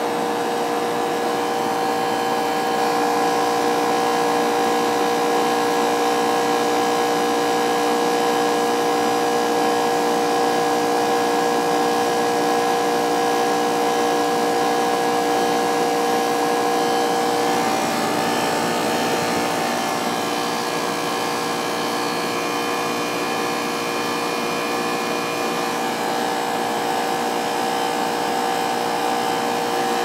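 Goodman central air conditioner condensing units running in cool mode: a steady machine hum of compressors under the whoosh of their fans, with several held tones. About halfway through, one of the held tones drops out and the sound gets slightly quieter.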